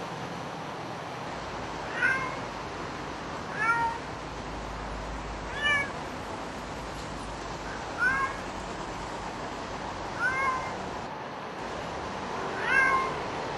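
Grey tabby house cat, left alone in a flat, meowing over and over: six drawn-out meows about two seconds apart.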